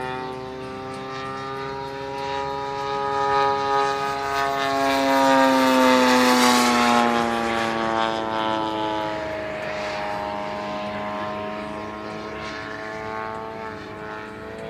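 Radio-controlled model warbirds flying past, led by the steady drone of the Bearcat's 70cc petrol engine and propeller. The drone swells and drops in pitch as the aircraft pass, with a rushing hiss at the loudest point, about six seconds in.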